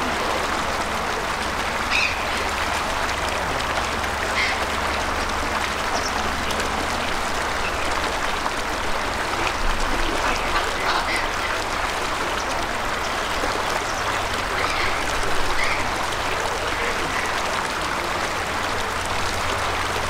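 Short bird calls every few seconds over a steady rush of running water.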